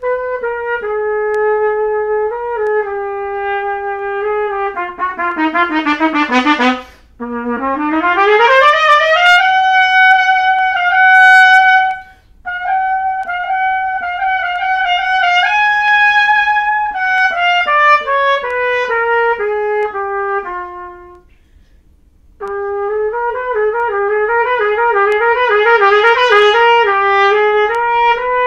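Solo trumpet played unaccompanied: held notes, a quick run downward and a sweeping rise to a long high note, in phrases broken by short pauses for breath, the longest about three-quarters of the way through.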